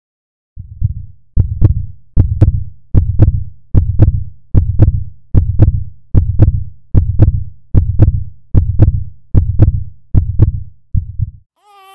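Heartbeat sound effect: a steady lub-dub double thump, a little under one beat a second, about fourteen beats, stopping shortly before the end.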